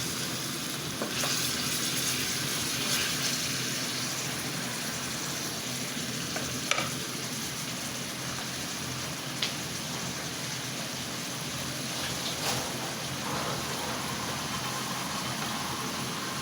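Marinated chicken pieces sizzling steadily in hot oil in a pan on a high flame, with a few sharp clicks of a spatula or spoon against the pan as they are fried and turned.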